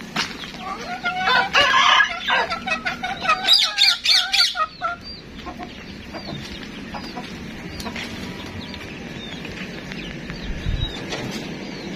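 Chickens clucking and squawking, with a rooster crowing, for the first five seconds or so. After that it is quieter, with faint small-bird chirps over a steady farmyard background.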